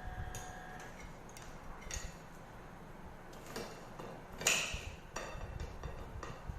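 Scattered light clicks and taps of food and tableware being handled while eating, with one louder clink about four and a half seconds in.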